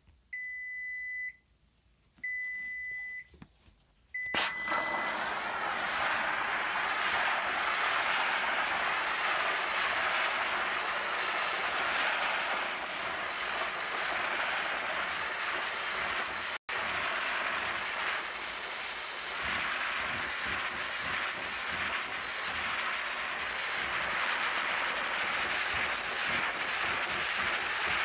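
Two electronic beeps, about a second each, then a click and a steady hiss of steam released from a McCulloch MC1385 canister steam cleaner's cloth-wrapped tool as it is worked over carpet.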